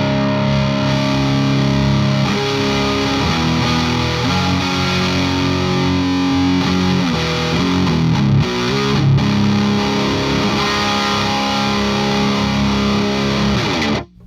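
Electric guitar played with heavy distortion from an Abominable Electronics Hellmouth pedal into a Rivera tube amp and a miked isolation cabinet. It plays held, ringing chords and notes, with a few sliding bends partway through, and cuts off abruptly near the end.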